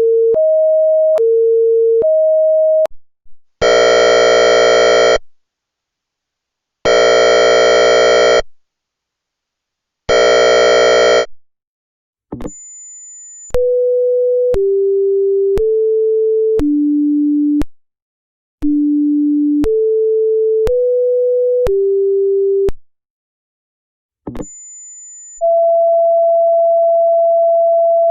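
Synthesized electronic siren tones in a run of different patterns. First comes a two-tone hi-lo alternation, switching about every three-quarters of a second. Then three long, buzzy horn-like blasts with pauses between them, a short high beep, and a sequence of stepped tones falling and rising about a second apart, ending in another high beep and a steady single tone.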